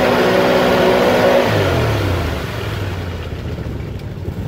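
ATV engine held at high revs while its wheels spin in deep mud, then about a second and a half in the revs drop and it runs on at low revs.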